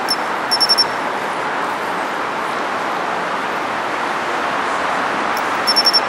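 Japanese pine cricket (matsumushi) singing twice, about five seconds apart. Each call is a single high, clear chirp followed at once by a quick run of about four pulses. Both calls sound over a steady hum of city traffic.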